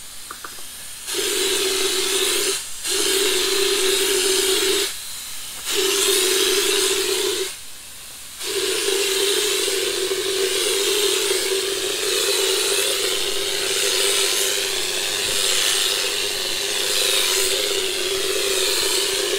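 Compressed-air spray gun spraying bedliner: a loud hiss with a steady tone under it, in three bursts of about two seconds with short gaps, then one long continuous pass from about eight seconds in.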